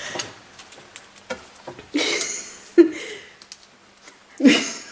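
Two short bursts of stifled laughter, one about halfway through and one near the end, with small clicks and rustles from fiddling with things on the table, including a sharp click just before the middle.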